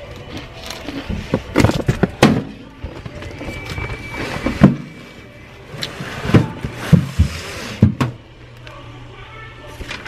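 A string of irregular knocks and thumps, about half a dozen spread over the stretch, over background music.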